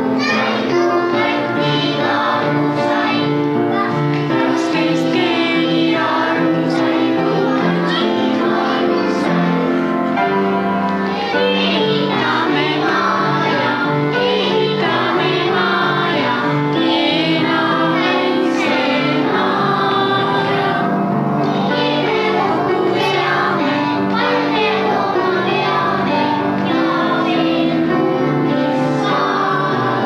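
A group of young children singing a song together with musical accompaniment.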